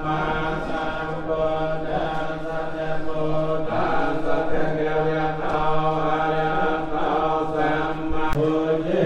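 Theravada Buddhist monks chanting together in unison: a steady group recitation held on a low drone-like pitch.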